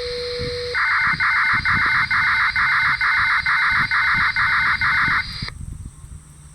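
Disaster-prevention radio transmission heard through a wideband receiver: a row of about ten identical electronic tone bursts, about two a second, after a steady tone. The transmission then cuts off, leaving faint receiver noise.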